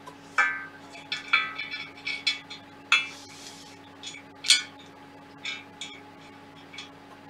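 Irregular light metallic clinks and taps, about ten in all, each with a brief ring, as the aluminium extrusions and metal frame of a Prusa i3 MK3S printer kit and their fittings are handled and fitted together by hand.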